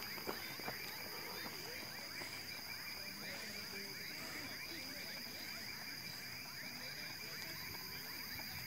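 Steady night chorus of many small overlapping chirps from calling animals, with a thin high steady whine above it.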